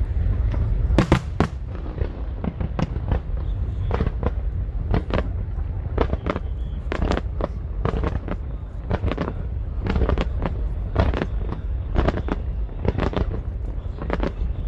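Aerial fireworks bursting in quick succession: a rapid string of sharp bangs, about two or three a second, over a continuous low rumble.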